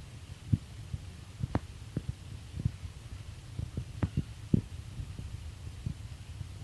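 Storm wind buffeting the microphone as a low rumble, with irregular soft thumps and a few sharper knocks.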